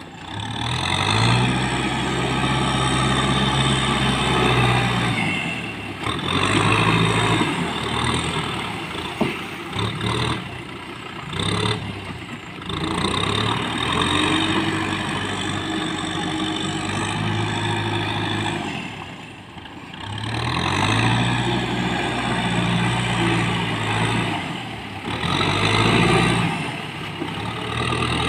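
Kubota tractor's diesel engine working under load as it pushes a front blade of mud through a flooded rice paddy. The engine note rises and falls several times as it revs up and eases off, easing briefly about two-thirds of the way through.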